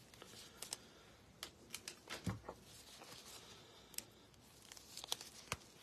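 Faint scattered clicks, rustles and a couple of soft knocks of plastic being handled: a trading card being slid into a soft penny sleeve and then into a rigid plastic top loader.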